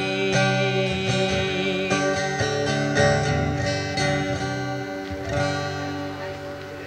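Acoustic guitar strummed through the closing chords of the song, the last chord struck about five seconds in and left to ring and fade.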